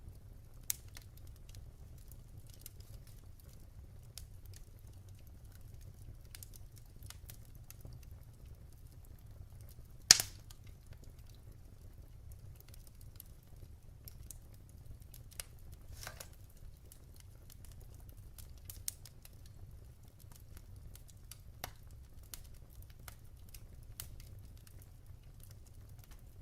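Wood fire in a fireplace crackling: scattered sharp pops over a low steady rumble, with one loud pop about ten seconds in.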